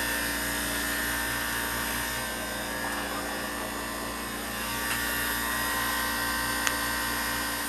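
Large Hoshizaki ice machine running near the end of its freeze cycle, the cubes nearly full thickness just before harvest: a steady mechanical hum made of several constant tones. A single light tick sounds near the end.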